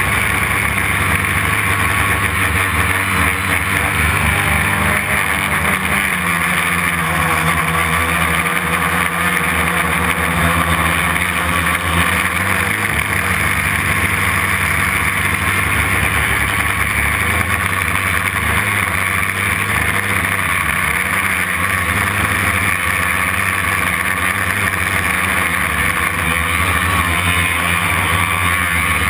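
Homemade quadcopter's brushless motors and propellers buzzing steadily, heard close up from a camera mounted on one of its arms, with small shifts in pitch as the throttle changes.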